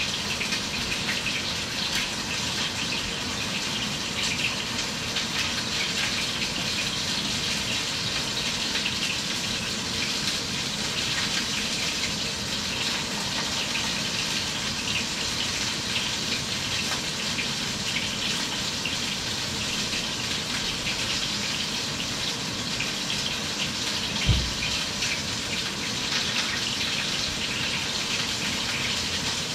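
Steady rushing noise with a single low thump about twenty-four seconds in.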